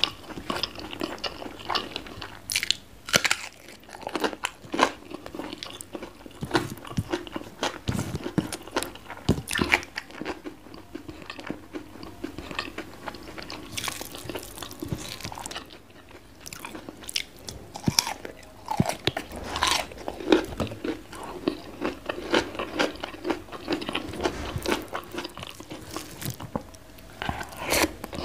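Close-miked ASMR eating sounds: a person chewing crunchy food, with many sharp, irregular crunches from bite after bite.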